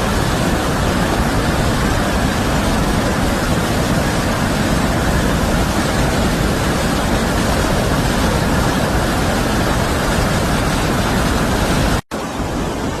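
Steady, loud rushing of whitewater pouring through a narrow river chute, with a powerful, intense sound. About twelve seconds in it cuts out for a moment and comes back somewhat quieter.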